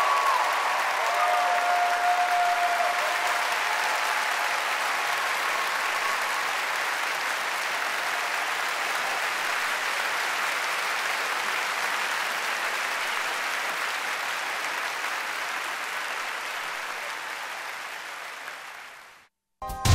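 Large audience applauding, the clapping gradually fading out over the last few seconds before cutting off.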